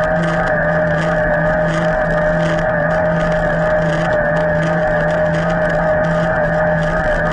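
Electric mountain bike's drive motor whining steadily under load in Turbo assist on a climb, with a lower hum that pulses in a regular rhythm and some tyre and wind noise.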